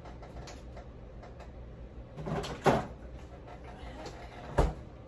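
Refrigerator door and its contents being handled: a knock about two and a half seconds in, then a sharper, louder thud about two seconds later, like the door being shut.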